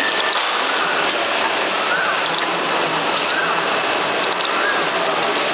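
Automatic ROPP (roll-on pilfer-proof) capping machine running: a steady mechanical hiss and hum, with a short rising-and-falling whine that repeats about every 1.3 seconds and scattered light clicks.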